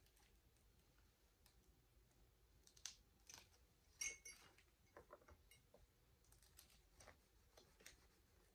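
Near silence with faint, scattered clicks and taps of fingernails and fingers handling a glass beer mug as vinyl decals are pressed on. The clearest come about three and four seconds in.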